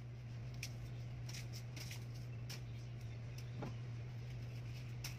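Steady low hum, with faint light clicks and small handling noises scattered over it.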